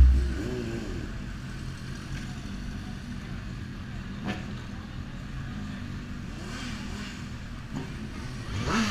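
Sport motorcycle engines idling steadily. One revs up and back down about half a second in, and another rises in pitch near the end. There is a single sharp click about four seconds in.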